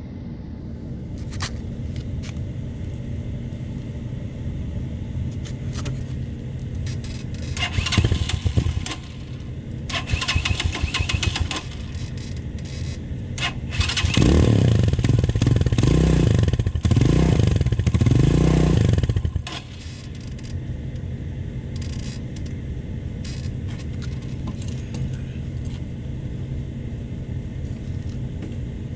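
Venom Sportster 250cc motorcycle engine idling, then revved in three quick swells about halfway through before settling back to idle.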